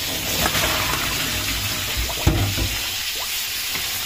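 Kitchen tap running and water splashing in a stainless-steel sink as green peppers are tipped from a bowl of soaking water into a plastic colander and rinsed by hand, with a dull knock about two seconds in.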